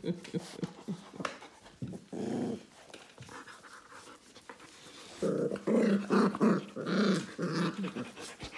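Puppies play-growling as they tussle: one short growl about two seconds in, then a run of louder growls in the second half.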